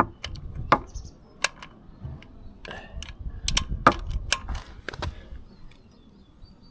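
Socket wrench tightening a bolt on a motorcycle: a series of irregular sharp metal clicks and clinks with low handling knocks, stopping about five seconds in.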